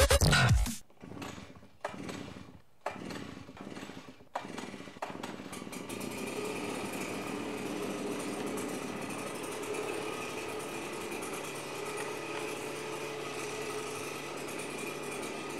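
Gas backpack leaf blower starting: a few short separate sounds as it is pull-started, then from about six seconds in its small engine runs steadily at idle.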